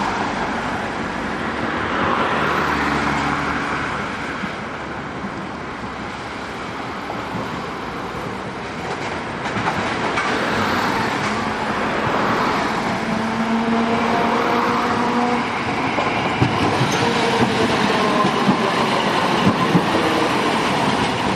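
Man'yōsen De7050-series streetcar running on street track with its nose-suspended traction motors, giving the growling gear-and-motor whine typical of tsurikake drive. It grows louder as the car comes closer, and the wheels clack sharply over the rail near the end.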